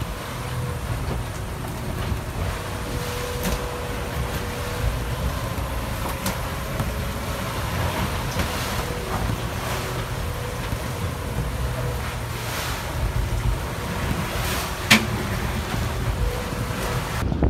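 Steady low rumble of a sailing catamaran under way, with a faint steady hum and a few short knocks, the sharpest about fifteen seconds in.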